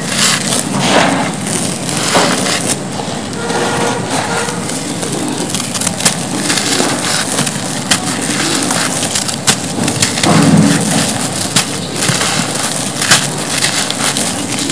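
Hands crumbling dry, gritty cement: continuous crunching with many small sharp cracks as chunks break apart, and loose grit sifting back onto the pile.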